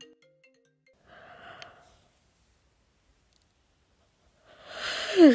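A person's sigh near the end, breathy, with its pitch falling, after a softer breath about a second in. The last notes of a short electronic chime tune fade at the very start.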